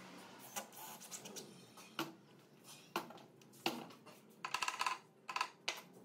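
Hard objects being handled on a work surface: sharp knocks about once a second, then a quick run of ringing clinks near the end.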